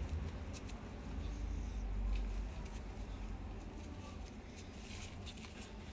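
Quiet room tone with a steady low rumble, and faint soft rustles and ticks of a crochet hook working soft raffia cord.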